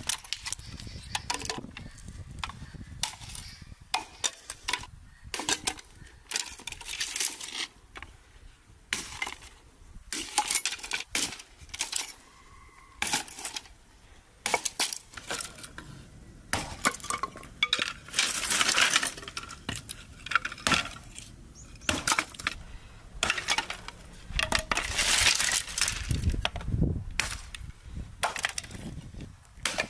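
Hand axe chopping thin dry branches into kindling on a wooden chopping block: irregular sharp chops, one every second or so, with the sticks snapping. A couple of longer noisy stretches come later on, as the brushwood is handled.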